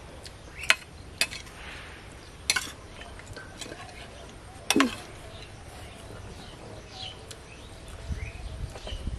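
A metal spoon and a metal plate clinking sharply four or five times, spread over the first five seconds, with softer handling noise near the end as the food is mixed by hand.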